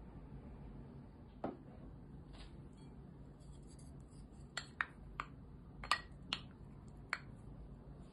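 Glass clinking: a small glass bowl and a spatula knocking against a glass mixing bowl as cream is tipped and scraped in. About seven light, sharp taps, one early and the rest bunched in the second half.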